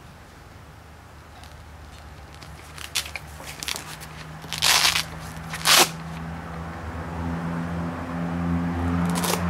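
A white foam buffing pad being fitted by hand onto the hook-and-loop backing plate of an orbital buffer: a few light clicks, then two harsh rasping bursts about a second apart. After that a low steady hum comes in and grows louder.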